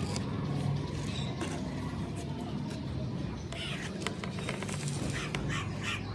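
Crows cawing several times in short calls from about halfway in, over a steady low hum.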